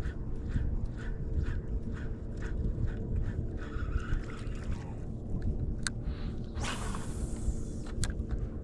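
Wind rumbling on the microphone on a kayak on open water, with a soft regular ticking about two to three times a second in the first half, a few sharp clicks, and a hiss lasting just over a second near the end.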